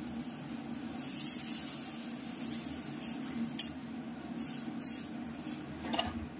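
Water poured from a jug into a hot steel wok of frying jute leaves, hissing as it hits the pan about a second in. Then a few light clinks of a metal spatula against the wok.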